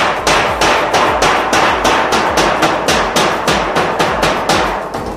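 Rapid hammer blows on a metal roof gutter, about four a second, stopping near the end: a leaking gutter being repaired on a tin roof.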